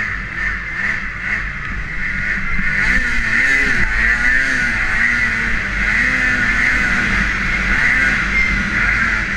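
Snowmobile engine running at speed while riding over packed, tracked snow. Its pitch wavers up and down with the throttle, and it gets louder about two and a half seconds in.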